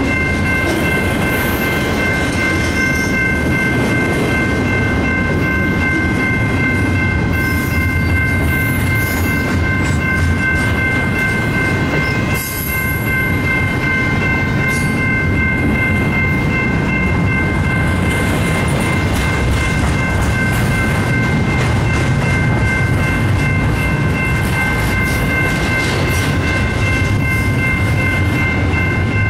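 Double-stack container train rolling steadily past a grade crossing: a continuous rumble and clatter of the well cars' wheels over the rail. Over it, a steady high ringing from the crossing signal's bell.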